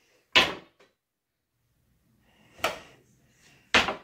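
Three sharp bangs, a loud one about half a second in, a quieter one a couple of seconds later and another loud one near the end.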